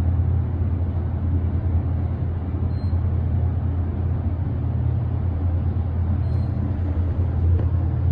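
Traction elevator car travelling upward at full speed (500 feet per minute), heard from inside the cab as a steady low rumble.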